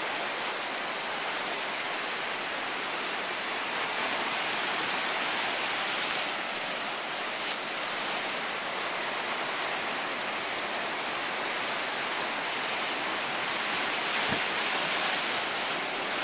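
Ocean surf breaking and washing over a rocky shoreline: a steady rushing hiss of moving water.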